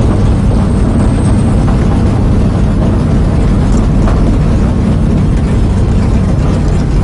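Stock car's V8 engine running loud and steady at low speed, heard from inside the cockpit, as the car rolls slowly down pit road at the end of its ride.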